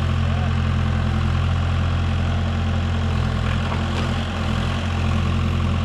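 A machine engine running steadily at a constant speed, with a strong low hum.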